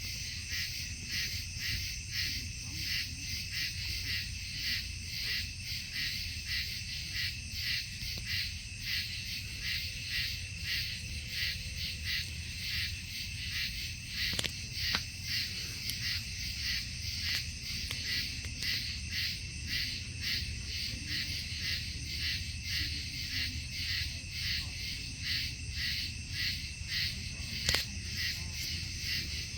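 Night insect chorus, a steady high-pitched pulsing at about two pulses a second, over a low rumble, with a sharp click about halfway through and another near the end.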